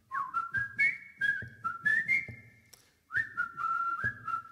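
A whistled tune over a light drum beat: the melody steps and slides between notes and pauses briefly just before the middle, then carries on.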